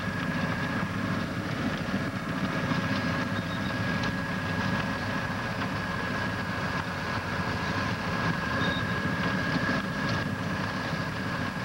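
Snowcat's engine and tracks running steadily as it drives through deep snow, heard from the cab: a low drone with a steady high whine over it.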